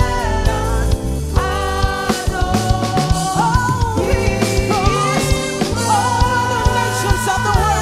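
Worship song played by a band, with drum kit and bass under long held sung notes that slide between pitches.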